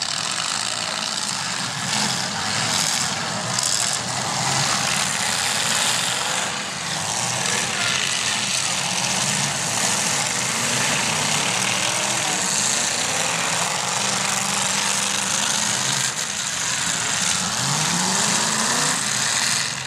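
Several demolition derby cars' engines running and revving together in a steady, dense din, with one engine revving up near the end.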